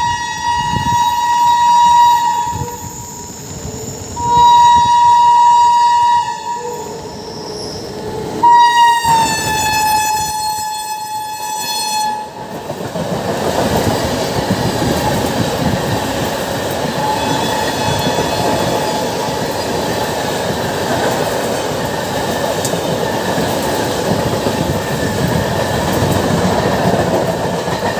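Indian Railways express passing through a station at speed. The locomotive horn sounds three long blasts, the third dropping in pitch as the locomotive goes by. Then the LHB coaches rush past with a steady rumble and the clickety-clack of wheels over rail joints.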